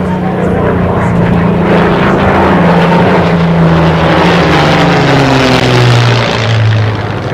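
Yak-3 fighter's V-12 piston engine droning as the plane flies overhead, growing louder and then falling steadily in pitch as it passes and moves away.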